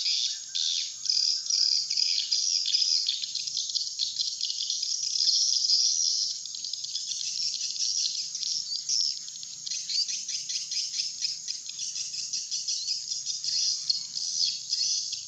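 Dense, continuous twittering and chirping of a swiftlet flock: a swiftlet lure call recording of the kind played to draw wild swiftlets into a nesting house. It eases slightly after about six seconds.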